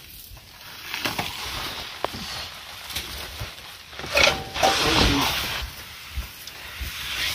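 Rustling of fresh-cut grass and hay with shuffling footsteps as a basket load of grass is handled and unloaded, plus a brief louder call with a short pitched tone about four seconds in.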